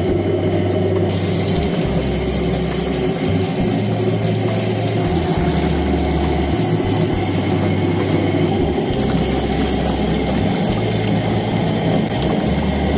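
Water pouring in a stream from a metal pot into a bowl of raw potatoes, splashing, over background music with a low bass line.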